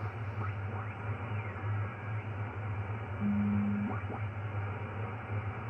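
Ham radio receiver playing steady static with a low hum, the band swamped by noise. A short, steady low tone sounds for under a second about three seconds in.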